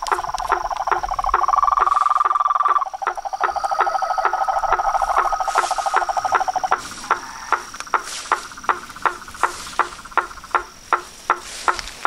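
Night chorus of pond frogs: one frog gives a short knocking call about three times a second throughout, over a dense trilling chorus that stops just past halfway. A thin steady high-pitched insect call runs underneath.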